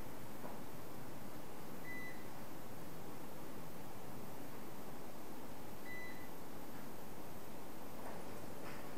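A short, high electronic beep sounds twice, about four seconds apart, over a steady background hiss.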